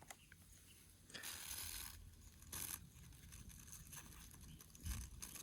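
Faint handling noises: brief rustling and scraping twice, then a soft thump near the end.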